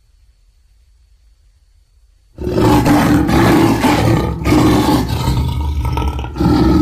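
Monster roar sound effect. After a quiet pause, a loud, rough roar starts about two and a half seconds in and carries on to the end, broken by two short breaks.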